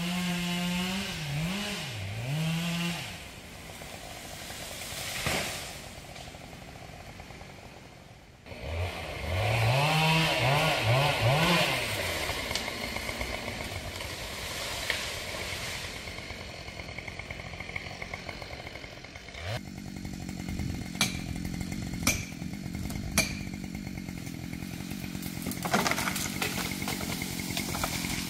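Chainsaw engine revved repeatedly, its pitch rising and falling in surges, with a quieter lull in between; from about two-thirds of the way through it runs at a steady pitch, with several sharp cracks over it.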